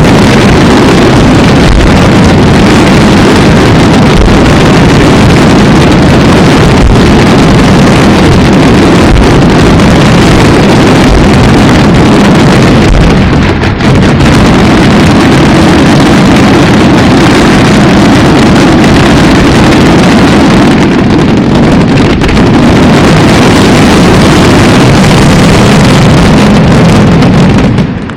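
Fireworks firing in rapid, overlapping succession, merging into one continuous deep rumble loud enough to overload the microphone, which drops off sharply near the end.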